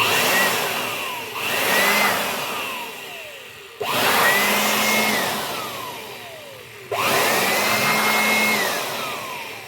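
Handheld electric air blower switched on in four bursts, blowing dust off a microwave's cooling-fan assembly. Each burst has a motor whine that rises, holds, and falls away as the trigger is released.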